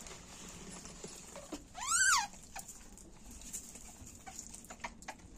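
A young rhesus macaque gives one short, high squealing scream about two seconds in, rising and then falling in pitch, the protest of an infant squabbling over food. Faint scattered clicks follow.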